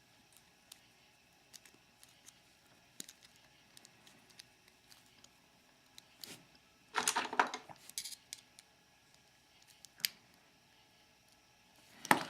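Small metal lock parts and tools handled at close range: scattered light metallic clicks, a short scraping rattle about seven seconds in, and sharp clicks near the end, as the cylinder is being worked apart.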